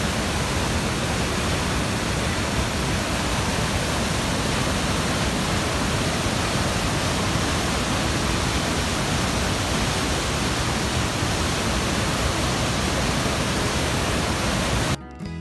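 Waterfall and whitewater rapids rushing through a rock gorge: a steady, dense rush of falling water that cuts off suddenly near the end.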